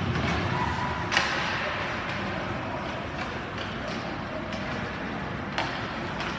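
Steady background noise of an ice rink during a hockey game, with a sharp knock about a second in and a smaller one near the end.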